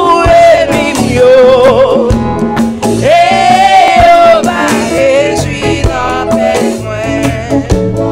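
A woman singing a praise song into a microphone, with congas played beneath her voice. She holds one long note about three seconds in.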